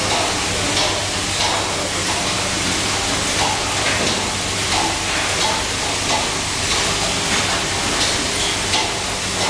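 Industrial egg cleaning and breaking line running, with its roller conveyor carrying eggs: a steady mechanical hum and hiss with irregular light clicks and clatter.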